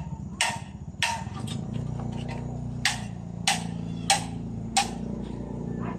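Six-pawl Sword bicycle freewheel hub ticking: sharp clicks about every two-thirds of a second. A steady low hum sets in about two seconds in.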